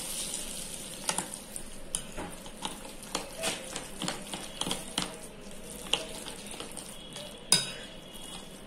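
A spoon stirring thick, wet semolina and green pea idli batter in a glass bowl, with irregular clinks and scrapes against the glass about once or twice a second. One sharper clink comes near the end.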